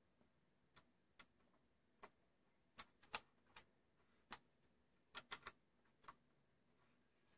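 About a dozen small, sharp clicks and taps at irregular intervals, some in quick pairs and triples, from a hand handling wires and a small plastic connector inside an opened cassette deck.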